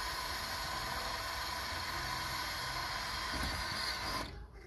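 Cordless drill running steadily as it drills holes through the RV's new roof covering, then stopping about four seconds in.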